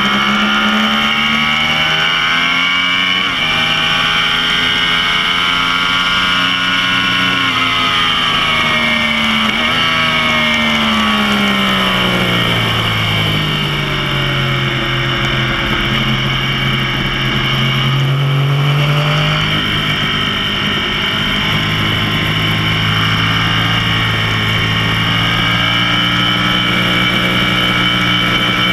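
Yamaha R1 crossplane's inline-four engine ridden hard from on board, its pitch rising and falling with the revs. A long drop in revs comes about a third of the way in, then a low steady stretch, then a climb again toward the end.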